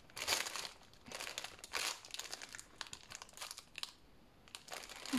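Small plastic baggies of diamond-painting drills crinkling and rustling in short, irregular bursts as they are sorted through by hand.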